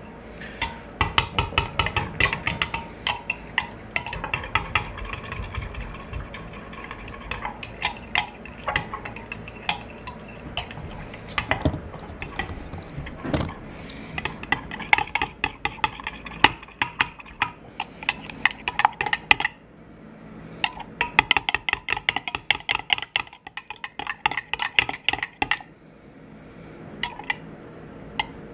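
A metal knife stirring liquid plastisol in a glass measuring cup, clinking and scraping against the glass in quick runs of taps with a few short pauses.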